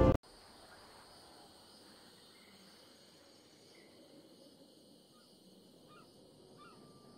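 Music cuts off abruptly at the start. Then comes faint, still outdoor ambience with a steady high insect drone and a few short bird chirps near the end.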